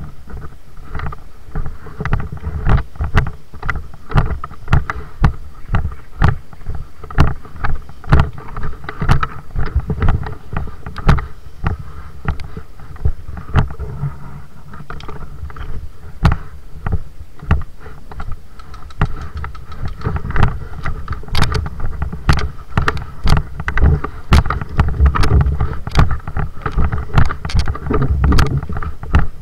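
A continuous low rumble with sharp clicks and thuds coming one to two a second, unevenly spaced.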